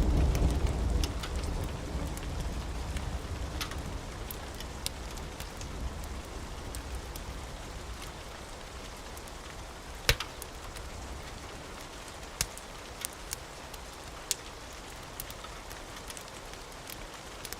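Steady rain, with a rumble of thunder dying away over the first several seconds. Scattered sharp crackling pops sound over the rain, the loudest about ten seconds in.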